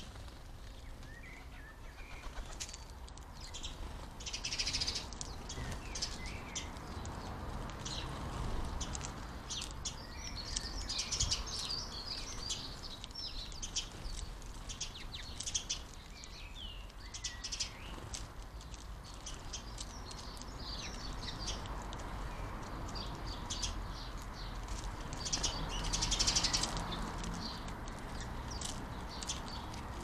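A flock of house sparrows chirping busily, many short overlapping chirps with a few louder spells, along with wing flutters as birds fly in and out.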